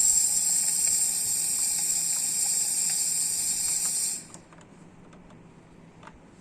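Steam wand of a Gastroback 15-bar espresso machine hissing steadily, then shut off suddenly about four seconds in; a few faint ticks follow.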